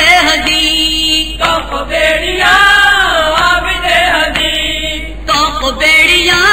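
A male voice chanting a noha, a mournful Shia lament in Urdu, in long, wavering held notes.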